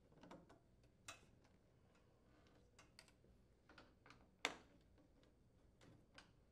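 Faint scattered clicks and ticks of a Phillips screwdriver working screws out of a gas range's metal control-panel frame, with one sharper click about halfway through.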